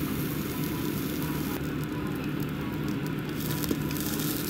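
A5 wagyu beef sizzling on the wire mesh of a tabletop yakiniku gas grill, a steady crackling hiss over a steady low hum, with one light tick near the end.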